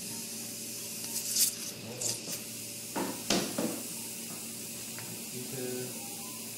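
Handling noises over a steady hiss: a brief rustle about a second and a half in, then two sharp clicks about three seconds in, as hands and instruments work over a draped leg.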